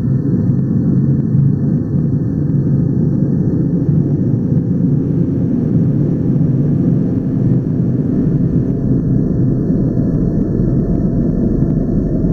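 Space-tunnel sound effect: a steady, deep rumbling drone that holds without a break.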